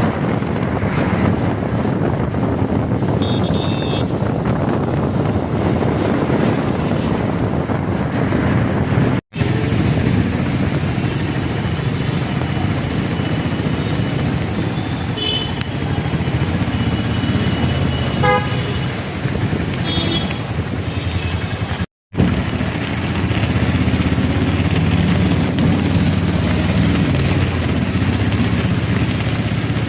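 Road traffic with engines running and a steady wash of noise, with short horn honks a few times.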